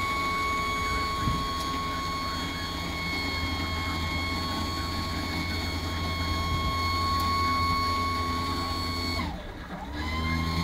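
Flatbed tow truck's winch and hydraulics running: a steady high whine over a low engine hum. About nine seconds in, the whine drops in pitch and stops, then starts again and rises back to its steady pitch a second later.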